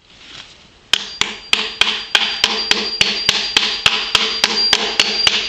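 Claw hammer striking a ball bearing to drive it into the end of a metal pipe. A steady run of sharp metallic strikes, about three a second, starts about a second in, with the metal ringing between blows.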